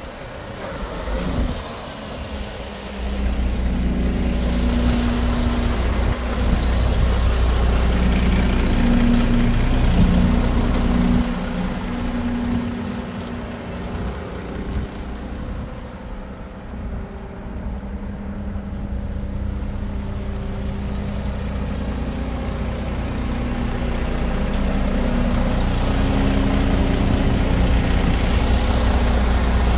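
MAN TGX 26.640 tipper truck's 15.2-litre straight-six diesel running with its tipper body raised on the hydraulic cylinder. The engine note steps up about three seconds in, eases off around the middle, and climbs again near the end.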